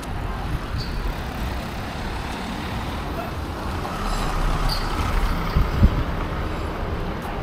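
Street traffic noise with a steady low rumble of passing motor vehicles, and a short loud thump about six seconds in.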